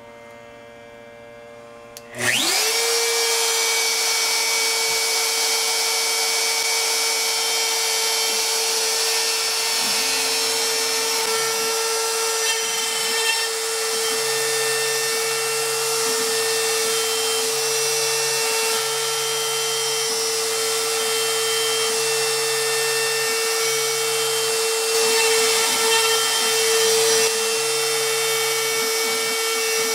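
An X-Carve CNC machine's trim router switches on about two seconds in, whines up to speed and runs steadily at a high pitch while a V-bit engraves into MDF. From about ten seconds in, the stepper motors driving the gantry add low hums that start and stop in short steps.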